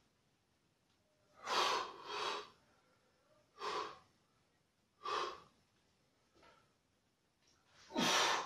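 A man's short, forceful breaths out from exertion during an arm workout: about six puffs a second or so apart, with one near the end as loud as the first.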